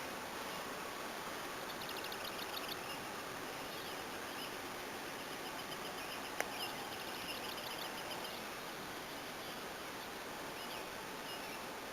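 Birds singing outdoors, with rapid high trills about two seconds in and again around six to eight seconds in, over a steady hiss. A single sharp click a little past six seconds.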